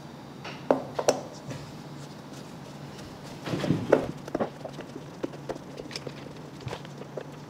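Scattered light knocks and clicks of wooden pieces being handled and set down, with a busier stretch of handling about halfway through, over a steady low hum.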